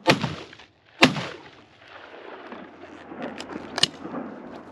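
Two shotgun shots about a second apart, each a sharp crack with a short echoing tail, fired at flushing chukar and missing. A few lighter clicks and knocks follow near the end.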